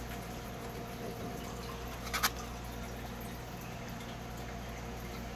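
A steady low electrical hum, with a short crackle of trading cards being handled about two seconds in.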